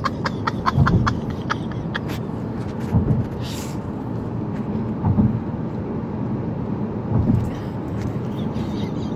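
Road noise inside a moving car's cabin: a steady low rumble of tyres and engine that swells every two seconds or so, with a run of light clicks in the first two seconds.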